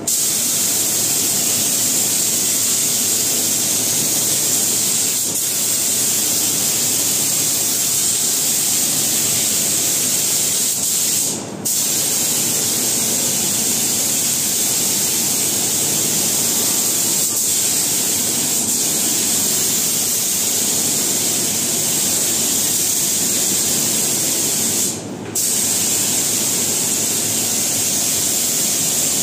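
Compressed-air spray gun hissing steadily as it sprays wooden slats. The trigger is let go briefly twice, about 11 seconds in and about 25 seconds in.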